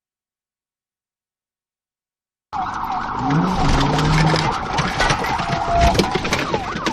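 No sound for the first two and a half seconds, then it cuts in abruptly: a police siren wailing over engine and road noise.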